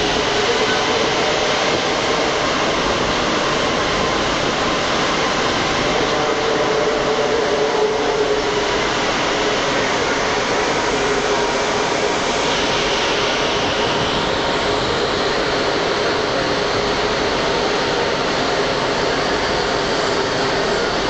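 Metro train running, heard from inside the passenger car: a steady loud rush of running noise with a faint hum underneath, and a brief higher hiss about twelve seconds in.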